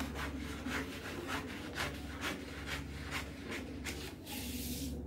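Scissors cutting along a paper kurti pattern, a crisp snip about twice a second. Near the end the snipping gives way to a short hiss.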